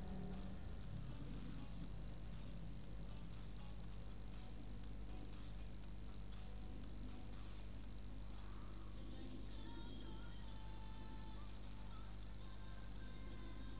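Steady low hum with a constant high-pitched whine, and nothing else standing out.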